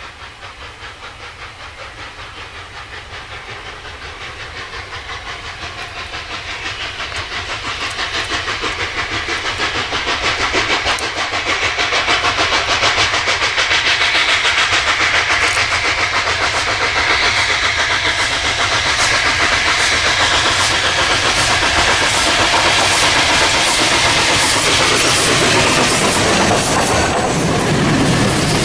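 Three-cylinder Pacific steam locomotive working a train, with rapid, even exhaust beats and hissing steam. It grows steadily louder for about twelve seconds as it approaches, then passes at full volume with the clatter of wheels over rail joints.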